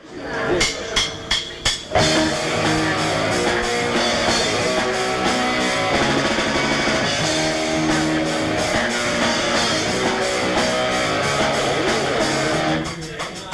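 A band playing live on electric guitar and drum kit: a few separate hits at the start, then the full band comes in about two seconds in and plays steadily, thinning out to sparser beats near the end.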